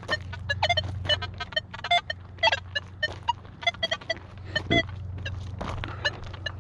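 Nokta Legend metal detector chirping and beeping as its coil sweeps the ground: many short tones of changing pitch, several a second, over a steady low hum. The quick, broken responses are what trash targets produce.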